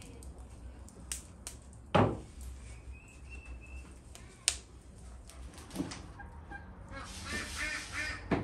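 Scattered knocks and clicks, the loudest about two seconds in, then near the end a bird calling in a quick repeated run.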